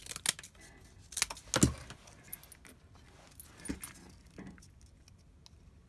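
Cardboard cutouts and tools being handled on a cluttered worktable: scattered light clicks, taps and rustles, with a louder knock about one and a half seconds in.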